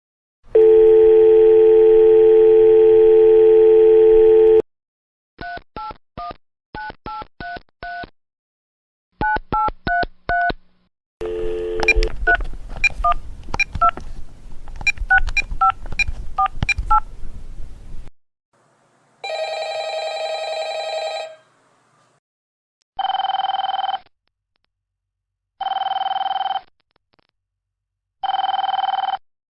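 A run of telephone line sounds. A steady dial tone lasts about four seconds, then touch-tone keypad beeps come in quick groups, followed by faster dialing beeps mixed with clicks. A short harsher tone follows, and then a tone about a second long repeats three times, about two and a half seconds apart, like a ringback tone.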